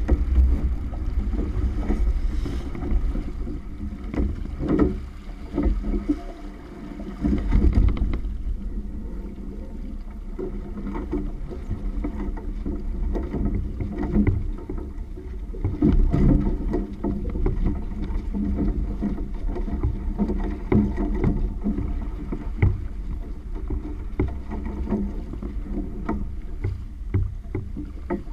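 Water rushing and splashing along the hull of a Catalina 22 sailboat under way under sail, with irregular louder splashes, the strongest about eight and sixteen seconds in, over a low rumble of wind on the microphone.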